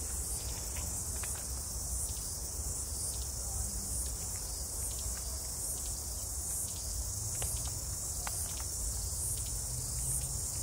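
A steady, high-pitched chorus of insects that pulses in a regular rhythm, over a low rumble.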